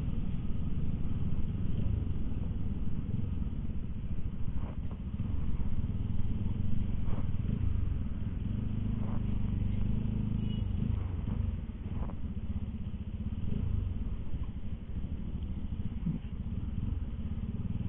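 Bajaj Pulsar RS200's single-cylinder engine running at low speed with a steady low rumble, and a few faint clicks now and then.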